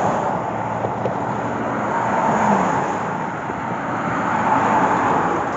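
Steady road and engine noise of a car driving along, with a faint steady hum through the middle.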